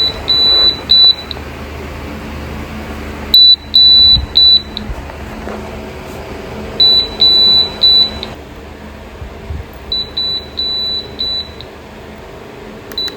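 Havells BLDC ceiling fan's controller board giving its fault beep: groups of high beeps, a longer beep between shorter ones, repeating every three to four seconds over a steady low hum, the later groups quieter. It is the fan's beep-sound fault, which the repairer traces to a failing power supply or voltage drop on the controller PCB.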